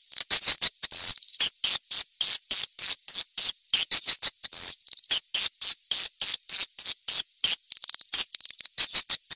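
Swiftlets chirping in a rapid, unbroken run of short high chirps, about five a second: a swiftlet lure call of the kind played to draw the birds into a nesting house.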